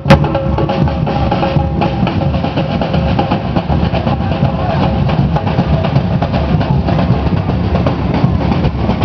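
Samba drum group (batucada) playing together in a fast, steady rhythm: deep bass drums under sharp, rattling snare drums. A single sharp crack sounds right at the start.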